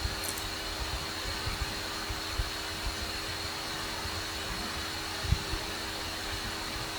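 Steady whirring fan noise with a constant low hum, broken by a few soft low thumps, one louder about five seconds in.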